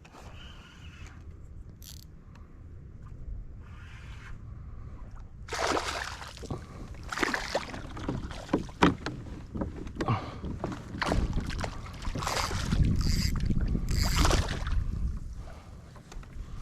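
Water splashing and knocking against a fishing kayak, in repeated bursts that begin about five seconds in. Wind buffets the microphone with a low rumble near the end.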